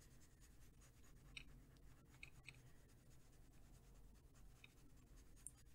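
Faint scratching of a Derwent Inktense pencil shading on a paper postcard, with a few small ticks of the lead against the paper.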